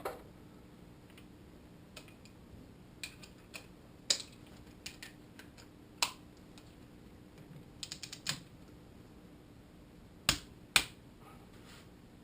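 Sparse, sharp clicks and taps of hand tools being handled, one every second or two, with a quick run of several clicks a little past the middle.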